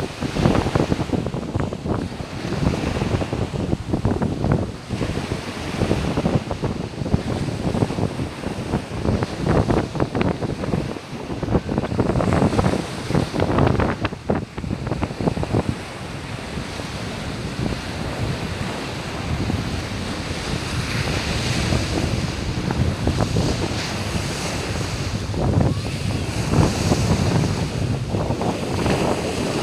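Sea waves washing onto a beach, with wind buffeting the microphone. The gusts are heaviest in the first half, and the wash of surf is steadier and hissier after the middle.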